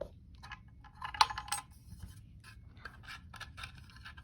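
Small clicks and scrapes of hand-handled parts as a power button's retaining ring is taken off and the button is fed through its housing, with one sharper click about a second in.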